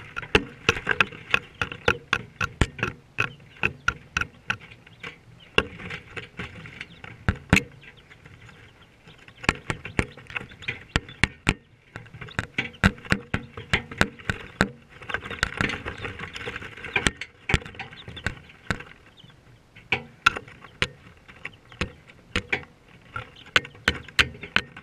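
Five-day-old chicks pecking at a GoPro camera, a rapid, irregular run of sharp taps right on the camera, with chicks peeping around it.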